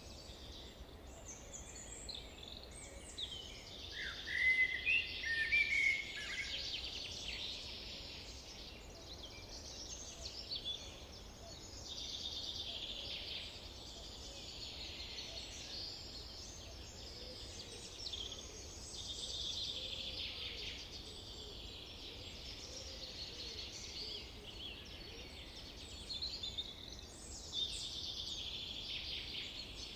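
Forest birdsong: several birds singing and calling over one another in a dense chorus of chirps and trills, with a louder, lower run of chirping calls about four to six seconds in.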